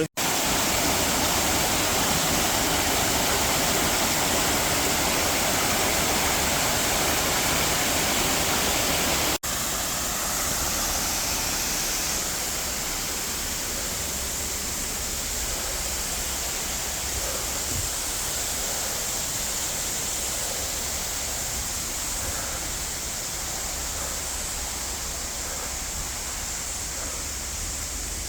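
Steady rush of running water from a nearby stream or waterfall. It drops out for an instant about nine seconds in, then goes on a little quieter.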